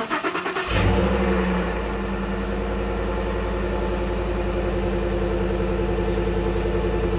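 A vehicle engine cranking with rapid clicks, catching under a second in with a jump in level, then idling steadily.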